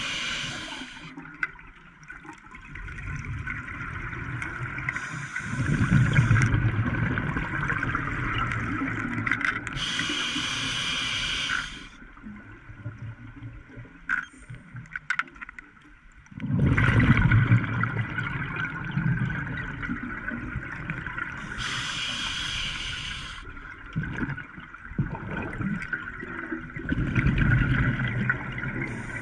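Scuba diver breathing through a regulator underwater: a short hiss on each inhalation, then several seconds of exhaled bubbles, repeating in slow breath cycles.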